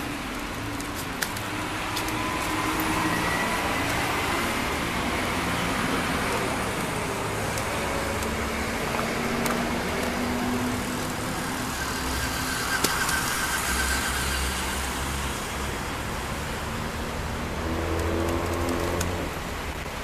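City street traffic: cars passing with a steady mix of engine and tyre noise, with a couple of brief sharp clicks.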